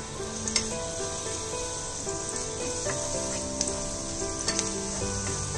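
Chopped garlic sizzling in a little hot oil in a non-stick frying pan, stirred with a wooden spatula that taps the pan lightly a few times.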